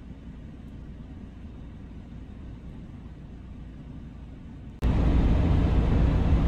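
Mercedes-Benz Actros truck driving, its engine and road noise heard from inside the cab as a steady low rumble. About five seconds in it jumps suddenly much louder and brighter.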